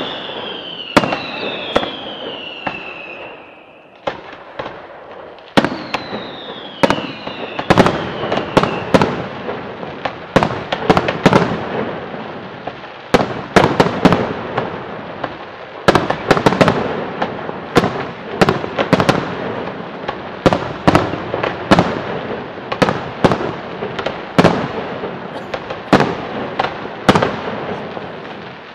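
Aerial fireworks display: a rapid, irregular series of sharp bangs from shells bursting overhead. Shrill whistles falling in pitch sound in the first several seconds, and the bangs come thicker from about halfway through.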